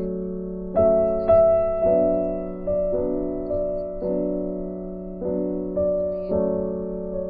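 Background piano music: a slow melody of single struck notes that ring and fade, over a sustained low note.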